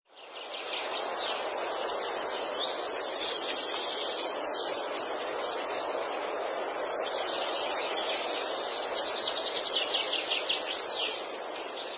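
Birds chirping over a steady background hush, with a fast trill of repeated notes about nine seconds in.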